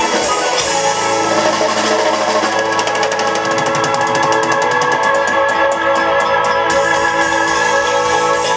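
Live rock band playing amplified electric guitar, keyboard and drum kit, with held chords over the beat. In the middle comes a fast, even run of hits that stops abruptly.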